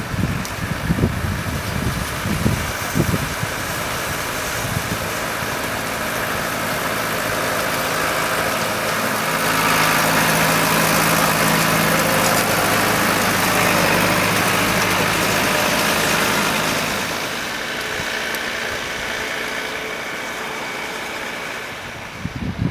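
New Holland TV-series tracked tractor pulling a trail groomer drives past. Its diesel engine drones steadily, grows louder with added track noise through the middle as it passes, then fades away near the end.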